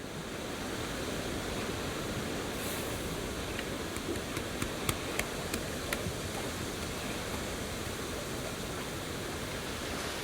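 Steady rain falling, a continuous even hiss, with a few sharp ticks between about four and six seconds in.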